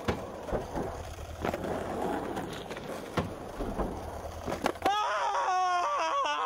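Skateboard wheels rolling on rough asphalt, with several sharp clacks of the board. Near the end, a wavering, pitched vocal cry.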